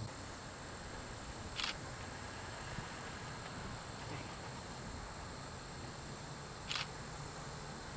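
Steady high-pitched insect chirring over faint outdoor ambience, with a camera shutter clicking twice, about five seconds apart.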